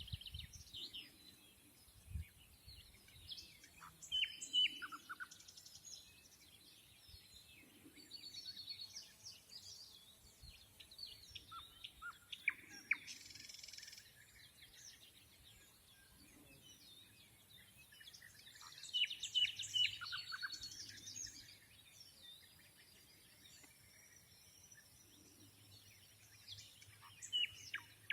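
Nightingale singing a lazy song: short phrases of whistles and rapid trills come one at a time, with pauses of a few seconds between them.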